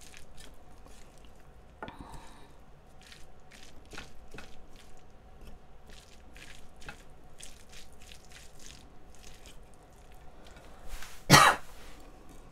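Chopsticks clicking and scraping irregularly against a ceramic bowl while tossing sliced raw octopus and raw beef. Near the end a person clears their throat once, the loudest sound.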